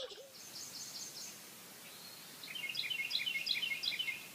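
Small birds chirping: quick series of short high chirps, a brief run near the start and a longer, louder run in the second half.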